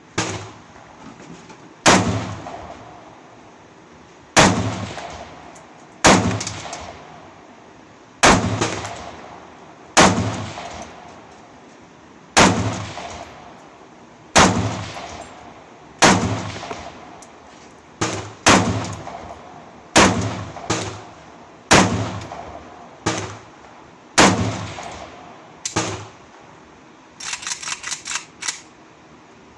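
Izhmash Saiga 5.56 rifle with a PWS FSC-30 compensator fired in slow single shots, about fifteen of them, roughly one every two seconds. Each shot rings out in a long echo. Near the end comes a quick run of light clicks.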